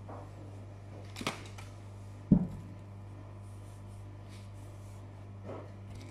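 Kitchen handling sounds at a mixing bowl: a sharp click about a second in, a louder dull thump about a second later, and a faint knock near the end, over a steady low hum.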